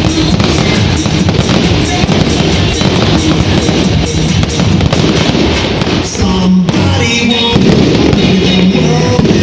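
A fireworks display going off, many bangs and crackles in quick succession, with music playing loudly alongside.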